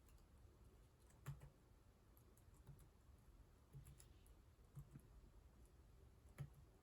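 Faint, scattered clicks of computer keyboard keys being pressed, about five clearer keystrokes spread unevenly among softer ticks, over a low steady hum.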